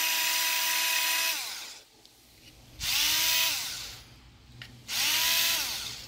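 Black+Decker cordless drill spinning a countersink bit to lightly taper the screw holes in a plastic grille-shutter actuator case. It makes three short runs of motor whine, each winding down in pitch as the trigger is let go.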